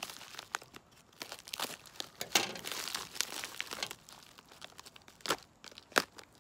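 Plastic USPS Priority Mail mailer being slit open with a pocketknife and crinkled as it is pulled apart, with irregular rustling and a few sharp crackles, the loudest about two and a half seconds in and two more near the end.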